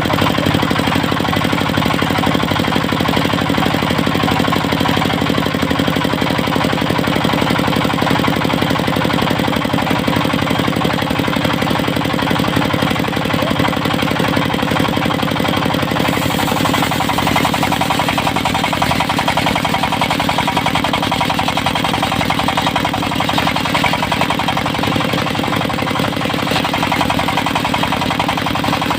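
Diesel engine of a portable circular-saw sawmill running steadily with a fast, even knock. About halfway through, a high hiss comes up on top and stays.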